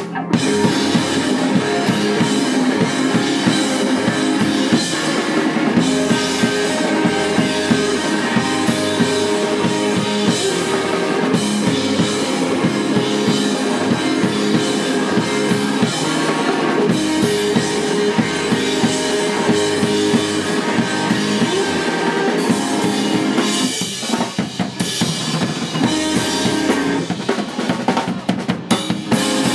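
Live rock band playing loudly without vocals, the drum kit to the fore with bass drum and snare hits driving the rhythm. About three-quarters of the way through the full sound drops back briefly to sharper, separate hits before building again.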